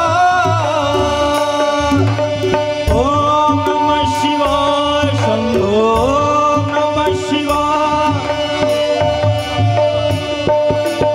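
Indian devotional bhajan music: tabla keeping a steady rhythm under a harmonium and electronic-keyboard melody of held notes, with some gliding notes in the middle.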